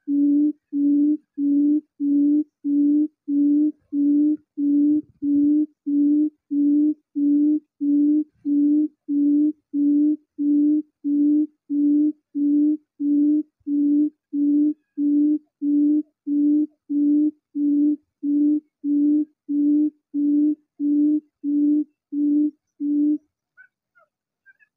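Recorded quail call played as a lure from a phone's Bluetooth speaker: one low hooting note repeated evenly about one and a half times a second, identical each time, stopping shortly before the end.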